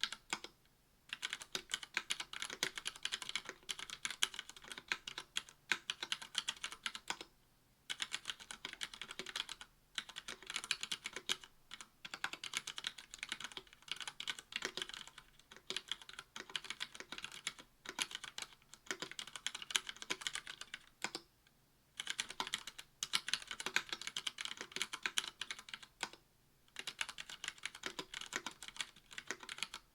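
Mechanical keyboard being typed on at a steady fast pace: KBD67 V2 MKII with a brass plate, GMK keycaps and stock Cherry Red linear switches, its keys clacking in quick runs broken by brief pauses.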